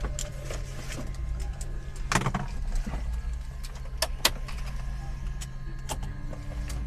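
An engine running steadily: a low, even hum, with a few sharp clicks and knocks scattered over it.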